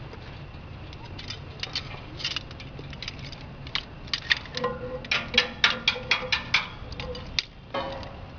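Sawdust crushing machine running with a steady low hum, overlaid by irregular sharp metallic clicks and knocks, some with a short ringing tone, which come thick and fast from about halfway in.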